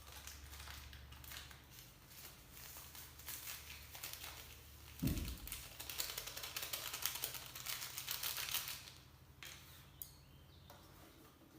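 Crinkling and rapid small clicks from a sachet of medicine granules being handled and opened, with a single thump about five seconds in.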